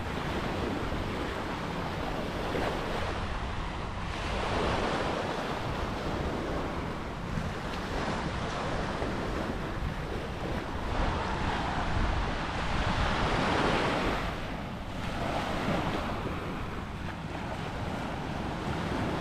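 Ocean waves breaking and washing up on a beach, the hiss of surf swelling and falling every few seconds, with wind buffeting the microphone.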